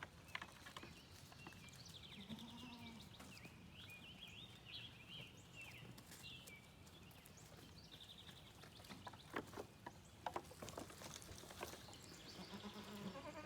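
Faint goat bleats, several wavering calls in the first half and another near the end, with a few sharp clicks or knocks about two-thirds of the way in.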